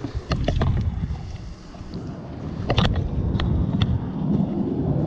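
Wind noise on the microphone aboard a small boat, with a few sharp clicks and knocks as a spinning rod and reel are picked up and handled on the deck.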